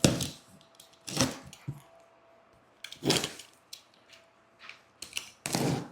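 Tape being peeled off packaging in four short pulls, one every second or two.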